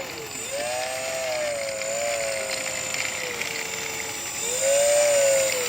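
E-flite UMX Cessna 182 ultra micro RC plane in flight, its electric brushless motor and propeller whining. The pitch wavers up and down with throttle and passes, and it swells louder about four and a half seconds in.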